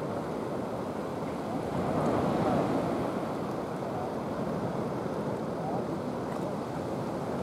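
Sea water lapping and sloshing with wind rumbling on the microphone, swelling a little about two seconds in.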